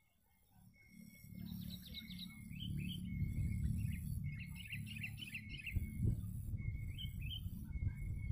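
Sooty-headed bulbuls (kutilang) calling in quick, bubbly chirping phrases, starting about a second in, over a low rumbling noise.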